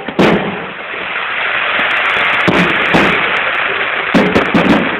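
Fireworks going off: a sharp bang just after the start, then a dense crackle of many small pops, and a quick cluster of bangs about four seconds in.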